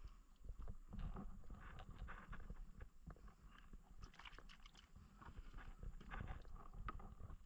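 Quiet, irregular soft knocks and rustling as a gill net and freshly caught fish are handled in a wooden boat, with the fish set down on its wooden floor.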